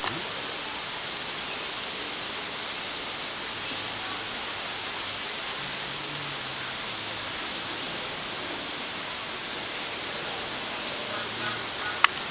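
A steady, even hiss, with a single sharp click near the end.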